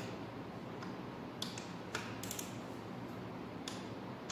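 A small ratchet wrench clicking as oil pan bolts are tightened in sequence: a few sharp, separate clicks, with a quick run of clicks a little after two seconds in.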